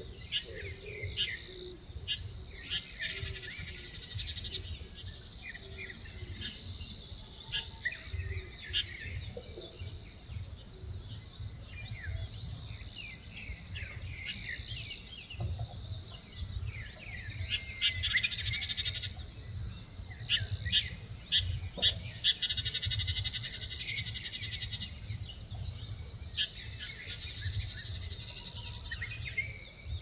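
Small woodland birds chirping and calling in quick, scattered notes. Several bursts of rapid trilling come through, each lasting about a second.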